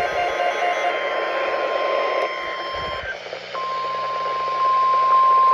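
NOAA Weather Radio warning alarm tone: a steady single tone near 1050 Hz over radio static, which breaks off about three seconds in and comes back stronger half a second later.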